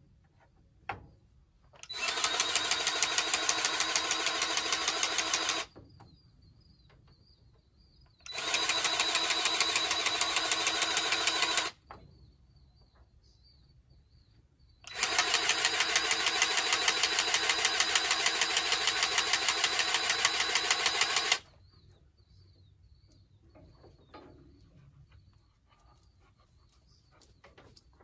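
Powered grease gun pumping grease into the tractor's grease fittings, in three runs of rapid, even clatter: about four seconds, then three and a half, then about six and a half.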